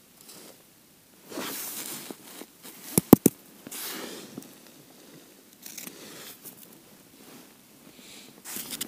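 Ice skimmer scooping slush and ice crumbs out of an ice-fishing hole: gritty scraping and crunching, with three sharp knocks close together about three seconds in.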